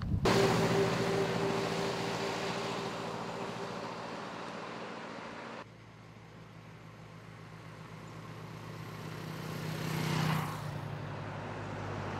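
A motor vehicle's engine running close by, fading away over several seconds. After a sudden change to a quieter sound, another vehicle approaches and passes near the end.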